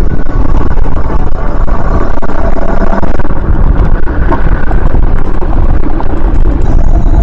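Heavy wind buffeting the microphone during a ride along a paved road, a loud, unsteady low rumble with a faint steady whine underneath.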